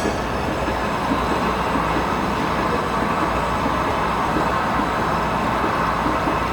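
Metal lathe running steadily in a workshop, an even, dense mechanical rumble.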